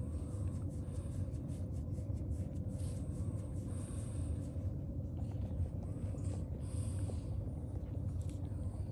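A steady low rumble with a faint hum runs under faint soft clicks and snuffles from newborn French bulldog puppies suckling at their mother.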